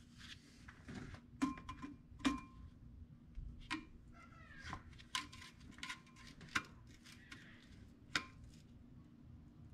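Clutch disc and pressure plate being set against a 1991 Honda Civic's flywheel and an alignment tool pushed in: a series of about seven sharp metal clinks and knocks, several ringing briefly, with a short scrape around the middle.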